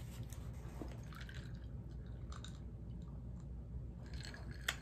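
Quiet chewing and mouth sounds, then sips of sparkling mineral water from a glass with ice near the end.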